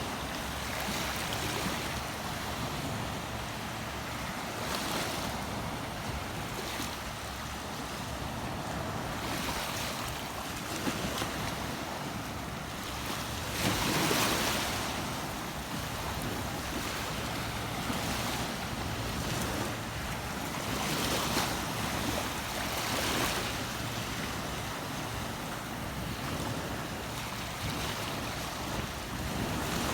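Steady rush of running water, swelling louder now and then, most strongly about fourteen seconds in.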